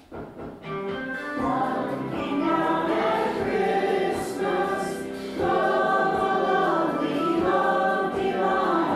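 A choir singing, the voices coming in after a short pause at the start.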